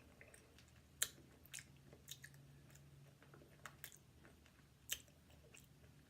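Faint chewing of marinated canned mussels: soft, wet mouth clicks and smacks, with a sharper click about a second in and another near five seconds.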